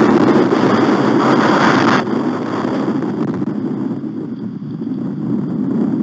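Strong wind buffeting the nest camera's microphone: a steady low rumble, with a harsher, hissier gust over the first two seconds that cuts off suddenly.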